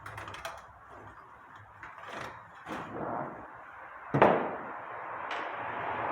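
Short scraping strokes of a tool marking a sheet-metal blank, a single sharp knock about four seconds in, then a longer scraping sound.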